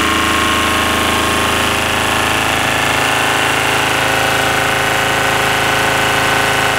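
Lombardini twin-cylinder diesel engine of a generator set running steadily.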